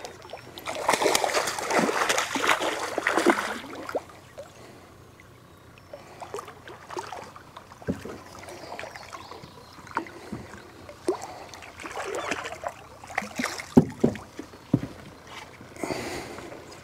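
A hooked catfish thrashing and splashing at the surface beside the boat for about three seconds, followed by scattered knocks, clicks and small splashes.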